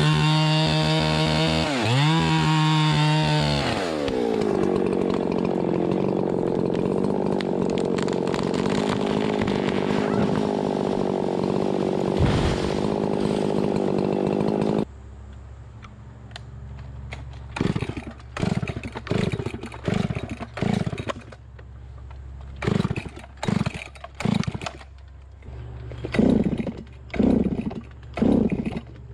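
Chainsaw revving hard, then running steadily at high speed with a noisy, even sound until it cuts off suddenly about fifteen seconds in. After that come a low steady hum and a string of about a dozen short sounds, each rising in pitch.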